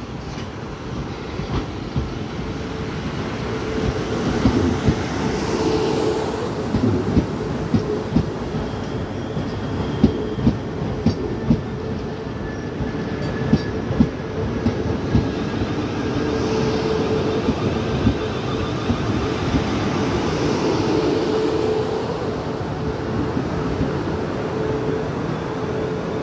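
South Western Railway Class 450 Desiro electric multiple unit arriving at a platform and passing close by, slowing: a steady electric hum with wheels clicking over rail joints, growing louder over the first few seconds as the carriages draw level, with a faint whine drifting down in pitch.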